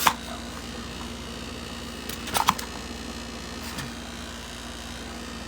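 A few sharp clicks and knocks of a cordless circular saw being handled: one right at the start, a quick cluster a little past two seconds in, and a faint one near four seconds. A steady low hum runs underneath. The saw's motor is not run.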